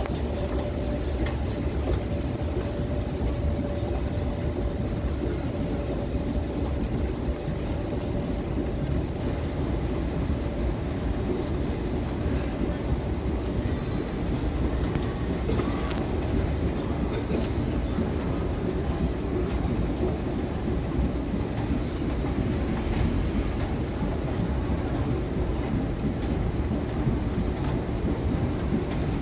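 Kone escalator running steadily, a continuous low mechanical rumble heard from on the moving steps as it carries the rider up.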